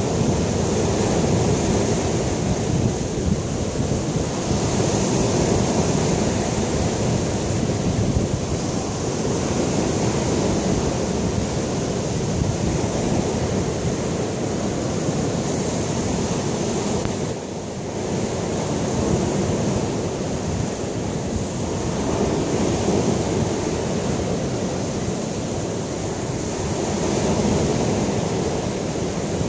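Lake Michigan waves breaking on a sandy beach: a steady wash of surf that swells and eases every few seconds, with wind buffeting the microphone.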